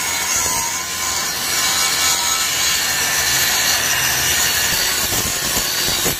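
Electric angle grinders with abrasive cut-off discs cutting through steel channel beams: a loud, steady grinding of disc on metal.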